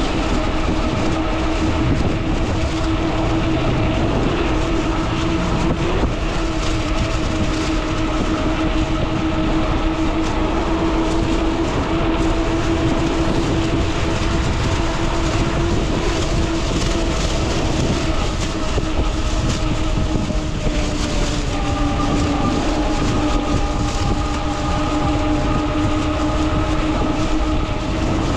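Electric fat-tire folding bike under motor power: a steady hum from the hub motor and fat tyres over a rumble of road and wind noise. An extra higher tone joins in about two-thirds of the way through.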